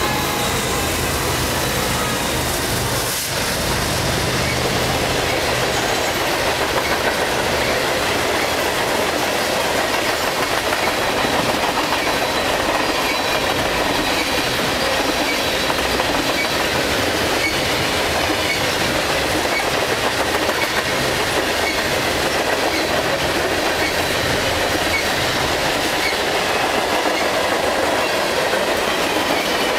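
A long freight train passing close by. At first the diesel locomotives' engines hum low under the wheel noise; once they have gone, loaded LPG tank cars roll past with a steady rumble and clickety-clack over the rail joints.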